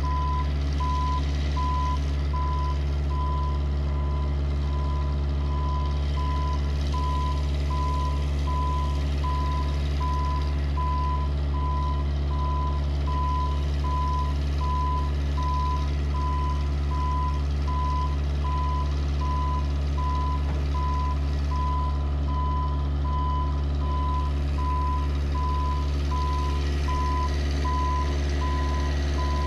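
JLG 150HAX boom lift's motion alarm beeping in an even, unbroken string of high beeps while the boom moves, over the steady drone of the lift's diesel engine running.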